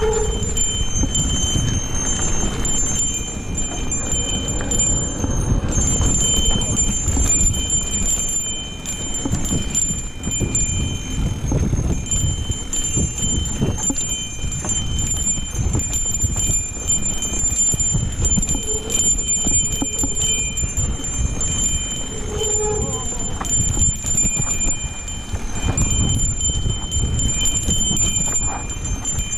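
Mountain bike riding down a dirt singletrack: tyres rumbling over the dirt while the chain and frame rattle and knock over the bumps, with wind on the microphone. A thin steady high whine runs underneath.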